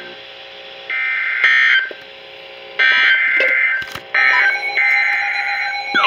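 Weather alert radios sounding their electronic alert beeps for a severe thunderstorm warning: four loud beeps, each lasting up to about a second, with short gaps between them.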